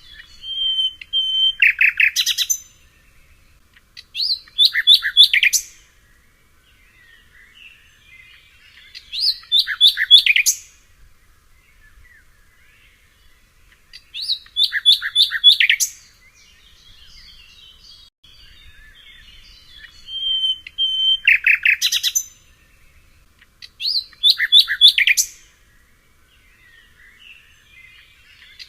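A songbird singing the same short phrase over and over, about every four to five seconds, with fainter chirps in between. Each phrase is a high whistled note followed by a quick run of sharp notes.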